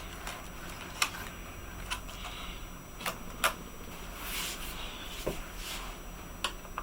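Scattered small clicks and soft rustles from handling a laptop's plastic case and keyboard while its keyboard cable is being unplugged.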